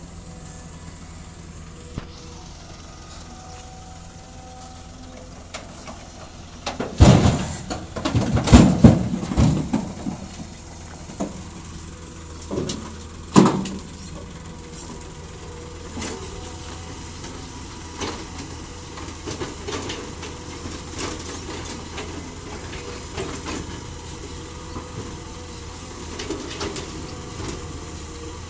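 Caterpillar hydraulic excavator's diesel running steadily while rocks crash and clatter under its bucket. There is a burst of loud crashes about a quarter of the way in, two more sharp crashes a few seconds later, then lighter scattered clatter.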